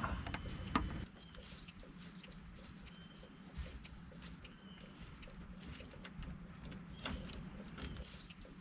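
Light handling noise and a sharp click in the first second, then a few faint clicks and taps as a car battery's hold-down bracket is worked into place, over a steady faint high background hiss.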